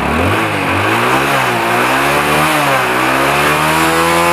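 Hero Honda Splendor's single-cylinder four-stroke engine revved with the throttle: two short blips that rise and fall, then held at a higher steady speed. It sounds healthy, which the seller calls good, nothing wrong.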